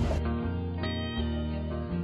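Background music of plucked string notes, struck about every half second.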